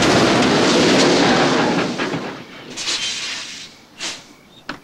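Loud rushing noise from a semi-truck that dies away after about two seconds, followed by two short sharp clicks near the end.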